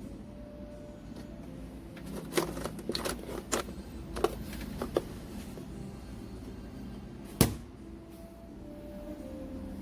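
A cluster of sharp clicks and knocks, like something being handled, from about two to five seconds in, then one louder sharp knock about seven seconds in, over a low steady background.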